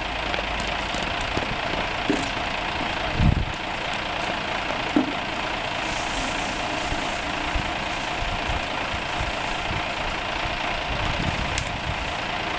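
Fire pump engine running steadily at a constant pitch and level, supplying the hose lines in a fire-attack drill. A short low thump comes about three seconds in and a sharp click about two seconds later.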